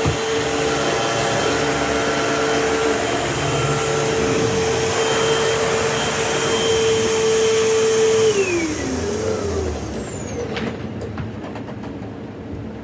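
Vacuum cleaner running with a steady whine, then switched off about eight seconds in, its motor winding down with a falling pitch.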